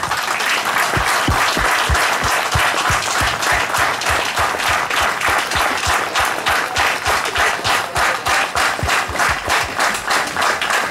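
Crowd applauding, many people clapping at once; in the second half the clapping settles into a steady rhythmic beat in unison, about three claps a second.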